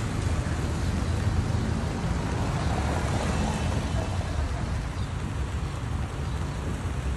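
Steady wind and road rumble heard from a moving open golf cart: low buffeting on the microphone with a hiss of tyres on the street.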